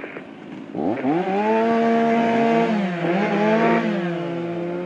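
An engine revs up sharply about a second in and then runs at high speed, its pitch dipping briefly and climbing again partway through.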